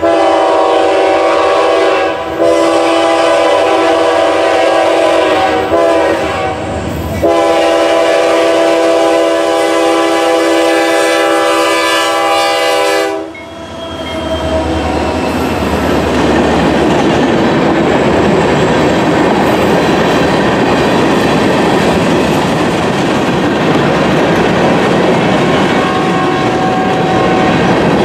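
Horn of a CSX SD40-2 diesel locomotive sounding several long blasts for a road grade crossing, the last held until about 13 seconds in. The horn then stops and the locomotive's 16-cylinder EMD engine rumbles past, followed by the steady rattle and clack of loaded tank cars rolling over the rails.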